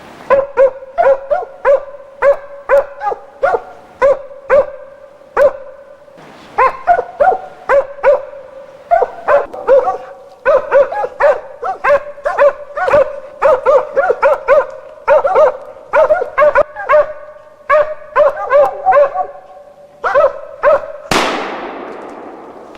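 Hunting dogs barking over and over, about two sharp barks a second, as they bark at game during a squirrel hunt. Near the end comes a single loud bang with a long echoing tail.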